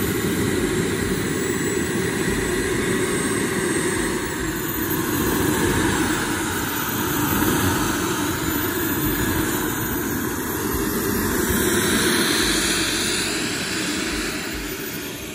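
Jet turbine of a radio-controlled Airworld F-104 Starfighter scale model running steadily as the model taxis on grass: a continuous rush with a thin, high whine that wavers in pitch, growing a little quieter near the end as the model moves away.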